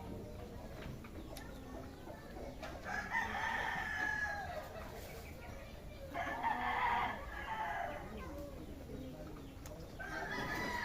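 A bird calling: three long pitched calls, each lasting about one to one and a half seconds, spaced roughly three to four seconds apart.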